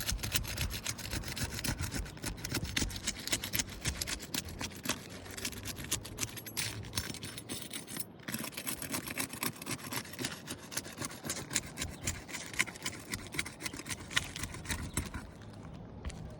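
A tool scraping and prying under the sealed tabs of old asphalt shingles, breaking the adhesive strip in quick, gritty strokes that ease off near the end. The tabs are not separating cleanly: the sealant is tearing the shingles' fibre mat, a sign of aged, brittle shingles.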